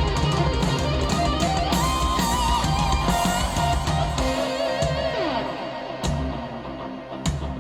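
Rock song with electric guitar played back through a hi-fi stereo amplifier and loudspeakers. About four seconds in the heavy bass drops away, leaving guitar lines with a falling slide and a few drum hits.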